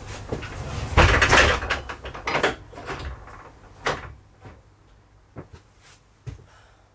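Objects being handled and set down in a small workshop: a loud rattling clatter about a second in, then a few separate knocks that grow fainter.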